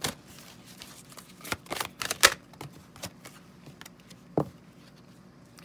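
A deck of oracle cards being shuffled and handled by hand: a run of soft, irregular flicks and taps, busiest around two seconds in, with one sharper tap a little past four seconds.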